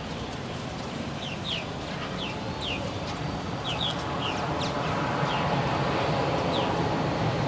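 Small birds chirping: short, quick downward chirps repeated in twos and threes over a steady background din that grows louder about halfway through.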